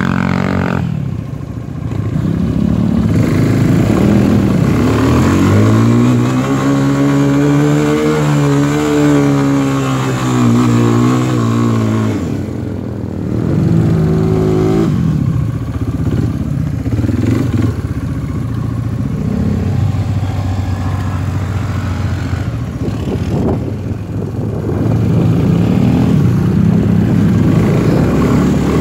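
Quad bike (ATV) engines running and revving over loose sand. The engine note swells and falls as the throttle is worked, with one long rise and fall in pitch about a third of the way in and a shorter one just after.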